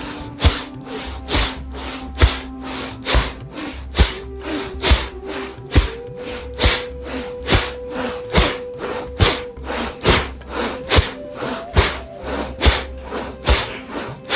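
Rhythmic forceful breathing, a sharp hissing exhale about once a second with weaker breaths between, done in time with a butt-kick exercise as part of a lung-strengthening breathing technique. Background music with sustained tones plays underneath.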